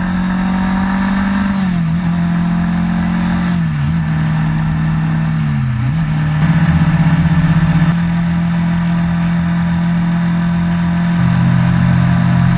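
Engine of the vehicle being ridden, running steadily at speed on the highway. Its pitch dips briefly three times and then drops to a lower steady pitch near the end.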